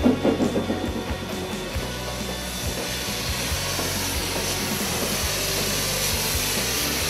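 Two steam locomotives pulling slowly past at close range. A few sharp exhaust chuffs come in the first second, then a steady hiss of steam with the rumble of rolling wheels and scattered clicks from the rails.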